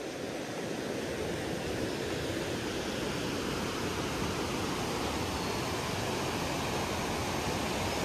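Alaknanda, a fast mountain river, rushing steadily: an even hiss of water.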